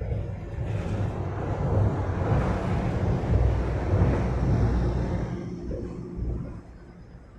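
A road vehicle crossing the bridge overhead, heard from beneath it. A low rumble with tyre noise swells over the first couple of seconds, peaks, then fades away about six seconds in.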